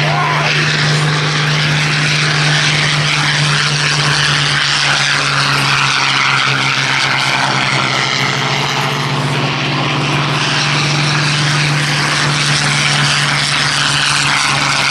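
Hawker Hurricane's Rolls-Royce Merlin V12 engine at full power for take-off: a loud, steady propeller-engine drone at an even pitch.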